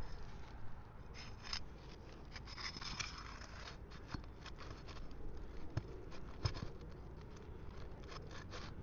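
Steel flat bar scraping and prying under asphalt shingles as roofing nails are worked loose: irregular scrapes and clicks, with a few sharper knocks in the middle.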